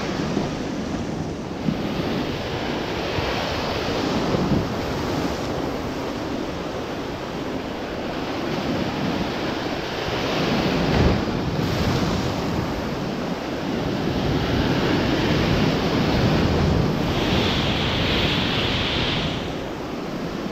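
Surf surging and breaking against a rocky shore, with wind on the microphone. The wash swells loudest about ten seconds in and again in the last few seconds.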